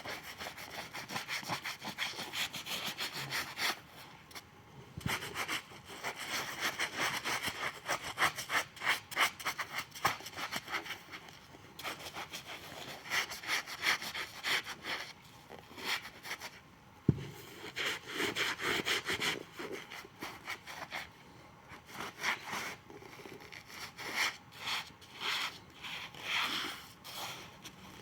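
Rapid back-and-forth hand scraping on a shoe sole, like sanding or rasping, in several runs with short pauses, and a single sharp knock about halfway through.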